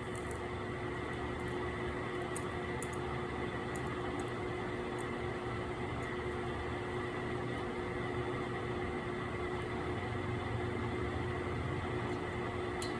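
A steady machine hum with a constant low tone and a higher whine over a noisy hiss, with a few faint clicks in the first few seconds.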